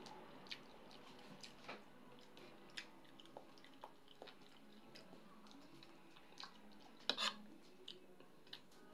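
Quiet eating sounds from a person eating fried fish and rice by hand: soft chewing and small scattered clicks of fingers and food against a plate, with a sharper double click about seven seconds in.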